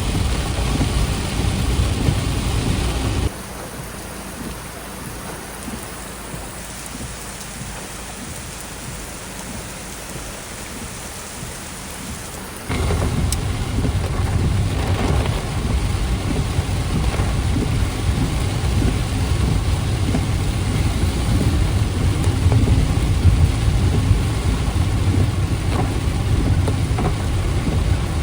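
Typhoon rain and wind, with a heavy low rumble of wind on the microphone. The sound drops abruptly about three seconds in, then comes back to full strength about twelve seconds in.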